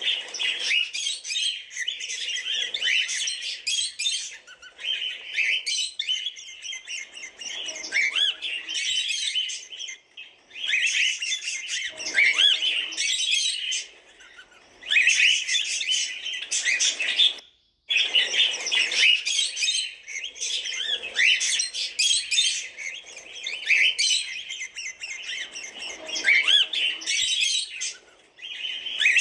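Cockatiels chirping and calling together, a busy chatter of short rising and falling chirps in bouts, with short lulls between them.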